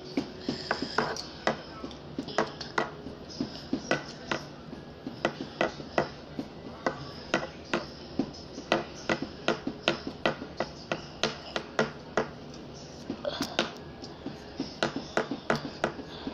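Pencil tip on notebook paper, making quick short strokes for a row of X marks: a fast, uneven run of sharp ticks, a few a second, with a short break about four-fifths of the way through.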